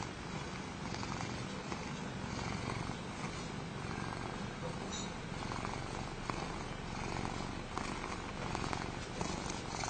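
Domestic cat purring steadily, a contented purr while it is petted on the head.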